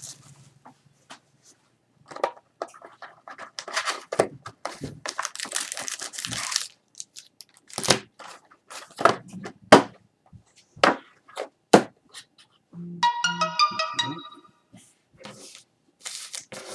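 A trading-card hobby box being opened by hand: wrapping tearing and crinkling, with cardboard snaps and clicks. A brief electronic chime of several steady tones sounds near the end.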